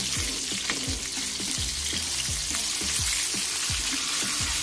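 Chicken pieces frying in hot ghee in an aluminium pot on high heat, giving an even sizzle, under background music with a regular beat.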